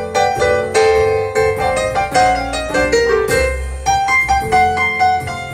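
Piano played solo, a steady stream of chords and single notes over low bass notes.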